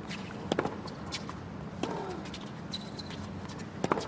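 Tennis balls being struck by racquets and bouncing during a rally: a string of sharp pops a second or so apart over a quiet stadium background.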